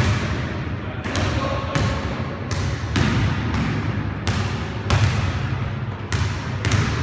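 Basketballs being dribbled on a hard gym floor: a run of sharp bounces, roughly two a second and not quite evenly spaced, each echoing briefly in the large hall.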